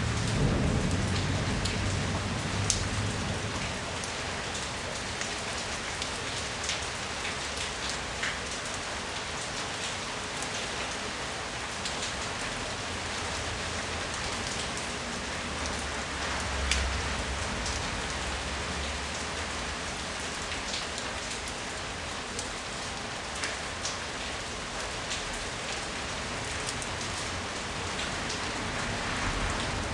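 Steady rain falling, with many separate drops ticking on nearby surfaces. A low rumble comes and goes near the start and again past the middle.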